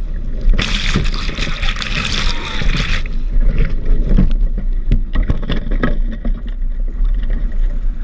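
Strong wind buffeting the microphone with a constant low rumble, while choppy water rushes and splashes against a Sunfish sailboat's hull as it sails heeled over. A loud hiss of spray runs from about half a second to three seconds in, followed by repeated sharp slaps of water on the hull.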